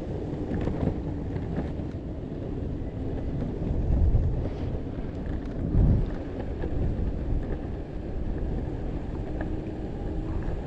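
Wind buffeting the microphone over the rolling rumble of a Possway T3 electric skateboard riding on pavement, with two stronger gusts about four and six seconds in.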